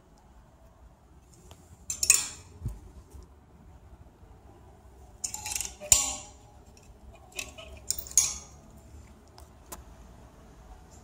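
Metal hangers clinking and scraping on a clothing rail as dresses are handled, in three short bursts: about two seconds in, around the middle, and again a little later.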